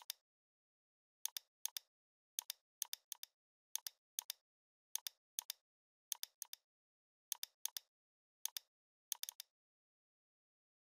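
Computer mouse clicks, mostly in quick pairs, coming every half second or so and stopping about nine and a half seconds in, with dead silence between them.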